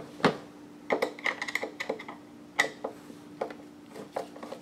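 A screwdriver working screws out of the grill's metal housing: irregular small clicks and metallic clinks, with a short run of quick ticks about a second in. A faint steady hum runs underneath.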